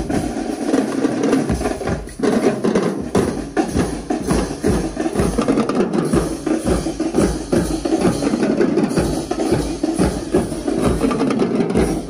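Marching drumline playing: a dense, continuous run of rapid snare-drum strokes with other marching drums underneath.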